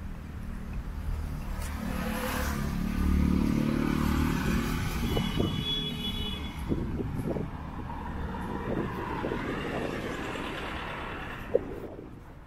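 A motor vehicle driving past on the street, its engine sound swelling to a peak about three seconds in and then slowly fading away. A brief high-pitched tone sounds near the middle, and a single sharp click comes near the end.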